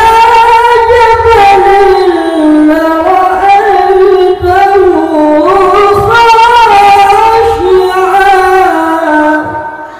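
A male qari chanting Qur'an recitation (tilawah) into a handheld microphone: one long, high-pitched melismatic phrase with held notes and ornamental pitch swoops that gradually descends and tapers off near the end.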